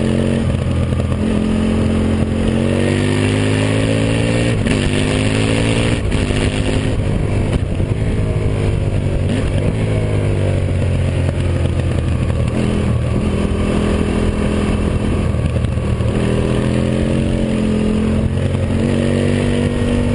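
Aprilia Tuono Factory motorcycle engine heard from the bike's tail under way: revs climb and drop back sharply several times as it shifts up, fall away as the throttle is eased, then build again.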